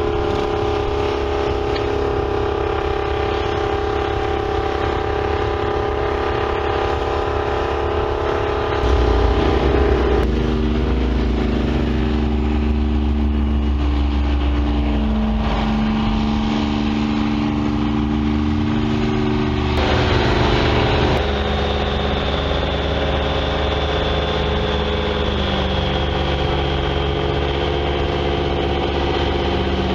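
Detroit Diesel engine of the Earthquake four-wheel-drive tractor running hard and steady. About nine seconds in it grows louder and deeper. Its note shifts again around twenty seconds in, after which a faint high whine slowly falls in pitch.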